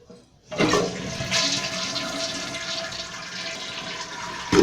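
2007 Kohler Wellworth toilet flushing with its tank lid off: after about half a second of quiet the water suddenly rushes out, a steady loud rush that keeps going. A short knock comes right at the end.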